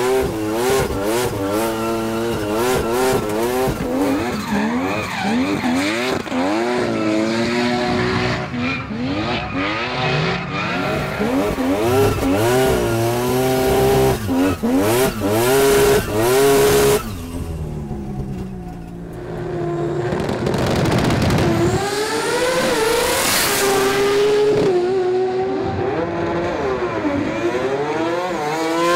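Mazda 20B triple-rotor rotary engine revving hard, its pitch rising and falling again and again with the throttle, with tyres squealing in a drift. About seventeen seconds in it drops off for a few seconds, then climbs again.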